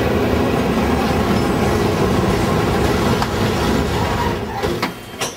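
Old-style Dalian electric tram running on its rails, a loud steady rumble that drops away about four and a half seconds in, followed by a few sharp clicks.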